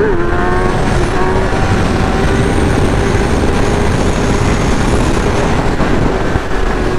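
Motorcycle engine running at a steady pitch at freeway speed, with a heavy rush of wind noise; the pitch climbs a little in the first second.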